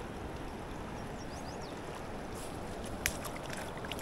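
Steady rush of fast river water flowing past, with a sharp click and a few smaller ticks about three seconds in.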